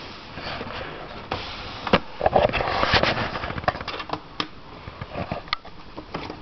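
Small screwdriver working a screw out of a laptop's plastic screen housing: irregular scraping and a run of short clicks, busiest a couple of seconds in, then a few sharp single clicks.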